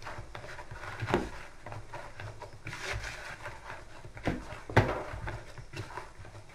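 Sweet raisin dough being kneaded by hand in a plastic basin: soft squishing and rubbing, with a few dull knocks as the dough is pressed and pushed against the bowl.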